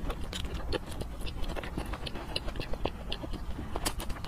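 Close-miked mouth sounds of someone chewing soft braised food, with irregular wet smacks and clicks of the lips and tongue over a steady low hum.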